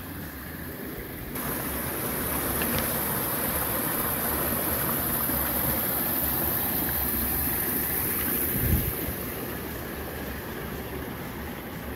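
Small creek trickling and splashing among granite boulders, a steady rushing hiss that grows louder after about a second. A low rumble runs underneath, with one brief low thump about two-thirds of the way through.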